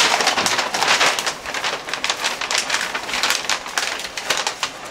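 A large paper sheet being unrolled and unfolded by hand, rustling and crinkling in a quick run of crackles.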